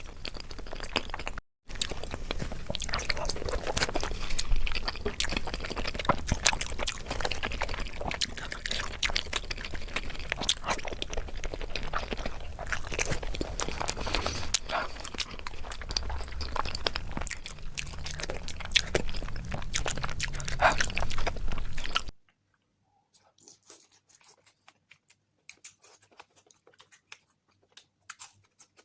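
Close-miked chewing and mouth sounds of someone eating spicy eggs: dense wet clicks and smacks. About three quarters of the way through the sound drops suddenly to faint, scattered clicks.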